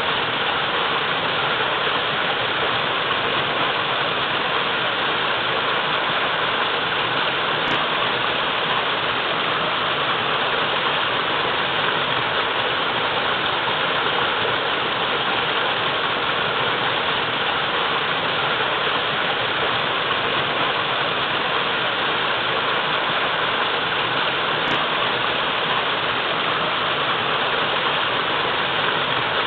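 Waterfall pouring steadily, a constant, even rush of water.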